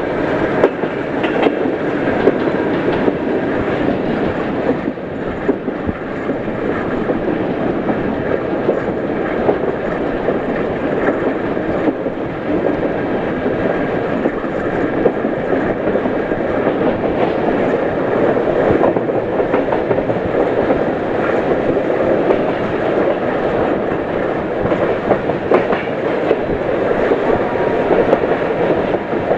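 Passenger train coaches rolling past, a steady rumble with wheels clattering over the rail joints.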